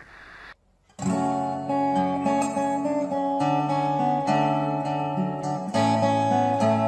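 Acoustic guitar being played, a steady run of plucked notes and chords that starts about a second in after a brief silence.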